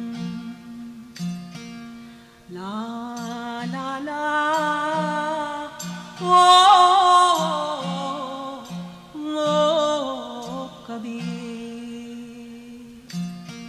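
Indian devotional song: a voice sings long, wavering notes over a steady drone and a regular low beat, and the voice drops out near the end while the drone and beat go on.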